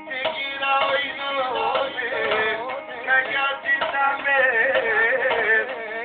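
A man singing with music behind him, the melody wavering and bending in ornamented runs.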